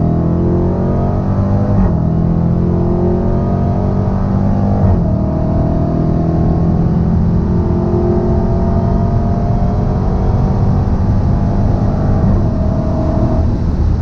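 Stock 2016 Dodge Challenger Hellcat's supercharged 6.2-litre HEMI V8 at full throttle, heard from inside the cabin at high speed. Its pitch climbs steadily, with upshifts of the automatic gearbox about two and five seconds in.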